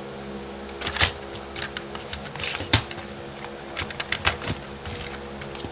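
Irregular plastic clicks and knocks as a telephone's parts are handled and fitted back together, over a steady low hum.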